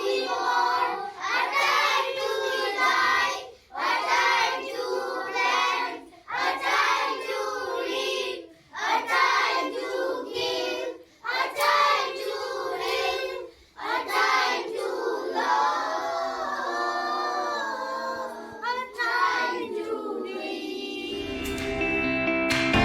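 A group of children singing together in phrases about two seconds long, with short breaths between them, then holding longer notes. Just before the end, guitar music comes in.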